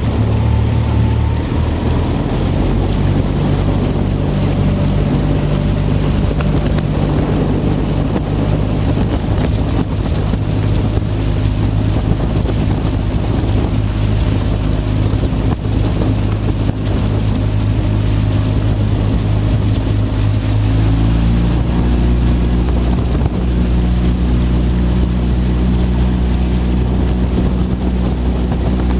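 Outboard motor of a following launch running steadily, with wind and water noise over it. Its note changes about two-thirds of the way through.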